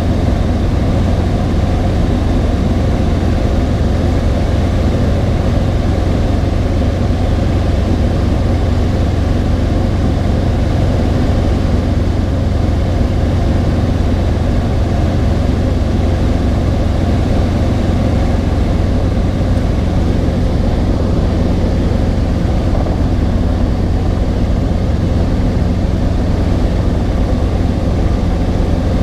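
Robinson R22 helicopter in cruise flight, heard from inside the cockpit: a loud, steady drone of its piston engine and rotor with airflow noise, unchanging throughout.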